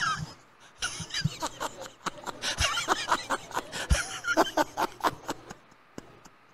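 Laughter from a church congregation: a scattered ripple of chuckles that dies away about five and a half seconds in.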